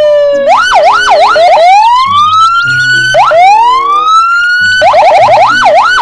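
Police car electronic siren cycling through its tones: a quick up-and-down warble, two long rising wails, then a fast yelp near the end.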